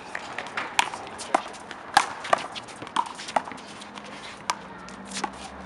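Irregular sharp slaps and taps, one or two a second: a small rubber handball struck by hand and bouncing off the wall and asphalt during a rally, mixed with players' footsteps on the pavement.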